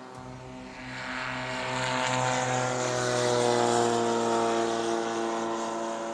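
Propeller-driven light aircraft flying past: the engine and propeller drone swells to a peak about halfway through, then drops in pitch and fades as it moves away.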